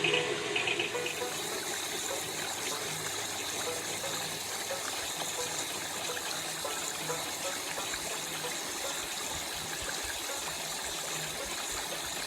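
Steady running water, like a small garden waterfall or stream, with faint soft ticks repeating at an even pace.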